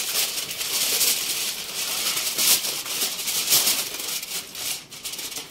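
Aluminium foil crinkling as hands press and crimp it around the rim of a cooking pot, in irregular crackles with a few louder crunches.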